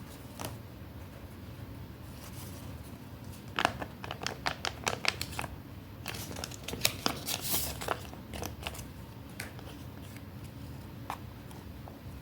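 Paper being handled: crisp crinkling and rustling in a quick run of clicks that starts about a third of the way in and dies away after a few seconds, with a few single ticks around it.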